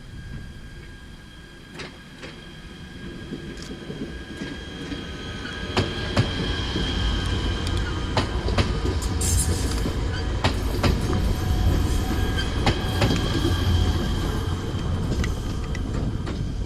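A train approaches and rolls past, growing louder over the first six seconds and then staying loud. Its wheels click sharply over rail joints under a heavy low rumble, with a thin steady high whine above.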